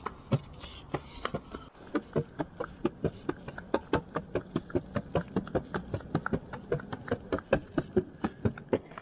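Jogging footsteps on a concrete path: a quick, even rhythm of footfalls that becomes steady about two seconds in.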